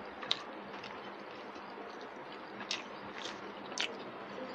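Someone eating rice by hand from a plate: a few short, sharp clicks and smacks, about four, over a steady background hiss.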